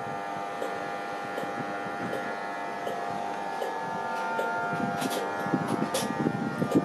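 InterCity 225 electric train pulling away slowly with its Mark 4 driving van trailer leading. A steady electric whine in several tones runs over a low rumble, with a few sharp clicks about five to six seconds in.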